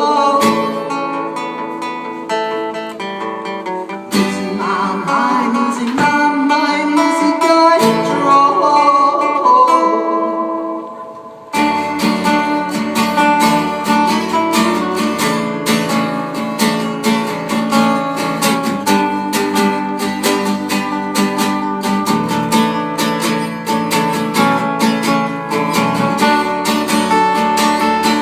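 Live guitar music. Strummed and picked guitar with held notes first; the sound fades briefly, then steady strumming comes in suddenly about eleven seconds in.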